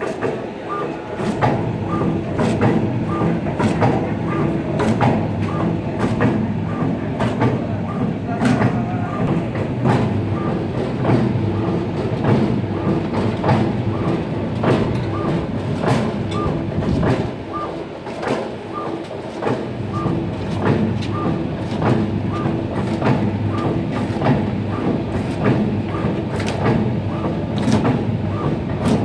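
Industrial frozen-meat slicing machine running, with a steady motor hum, a light tick repeating about twice a second, and scattered clicks and knocks. The low hum thins for a couple of seconds a little past the middle.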